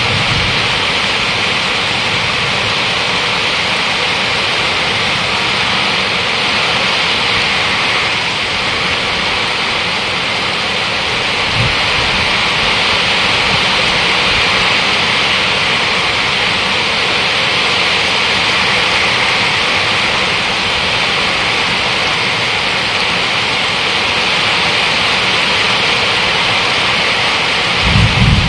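Heavy rain pouring down steadily, a dense even hiss. A short low rumble comes near the end.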